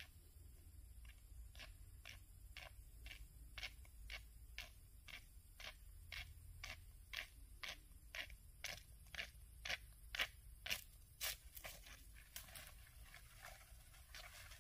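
Faint, crisp clicks repeating about twice a second in an even rhythm, growing louder past the middle and turning quicker and less regular near the end.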